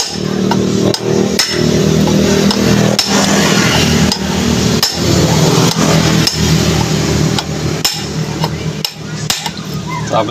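Steel rod used as a drift inside a Bajaj RE rear wheel hub, knocked down onto the bearing to drive it into place: sharp metal-on-metal knocks at irregular intervals, about one to two a second, over a steady low hum.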